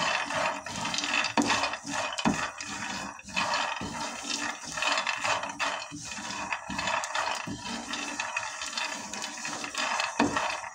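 Dried corn kernels and groundnuts rattling and scraping in a dry frying pan as they are stirred with a corn cob while toasting, a steady stream of small clicks.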